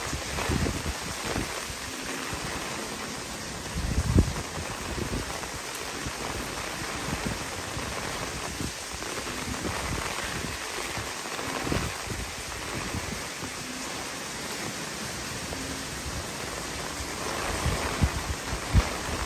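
Typhoon rain falling steadily on leaves, a constant hiss, with occasional low thumps that are loudest about four seconds in and near the end.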